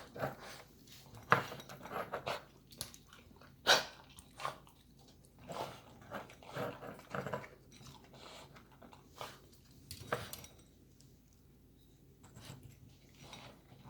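Boston terrier eating and moving about: irregular sharp clicks and crunches, a few of them loud, typical of dry dog food being crunched and of claws on a hard floor.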